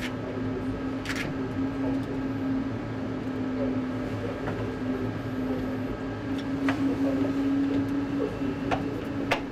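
Steady hum inside an A320 full flight simulator cockpit: a low rumble under a held tone that wavers slightly, with a few short clicks.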